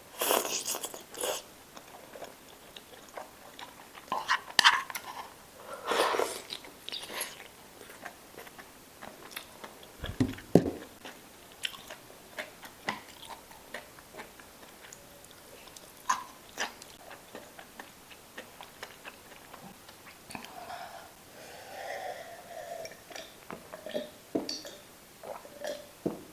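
A person chewing and biting food close to the microphone, in irregular bites with a few louder crunches and wet mouth sounds.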